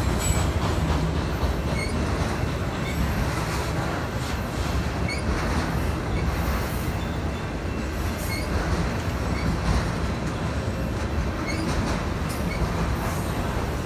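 Freight train of autorack cars passing, its steel wheels rolling steadily over the rails.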